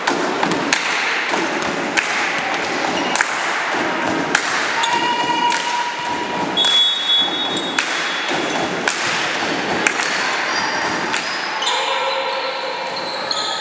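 A volleyball being struck by hands and hitting the floor during a rally: a run of sharp thumps, roughly one a second, ringing in a large hall. Brief high squeaks come in a few times, with voices in the background.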